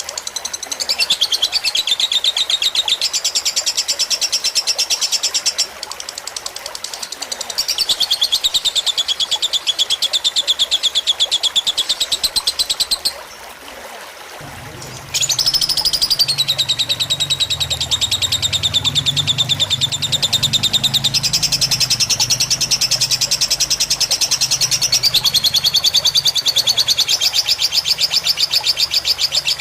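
A fighter lovebird sings long, rapid trilling chatter in sustained runs over trickling water. The song breaks off for about two seconds around the middle, and a low hum comes in at about the same time.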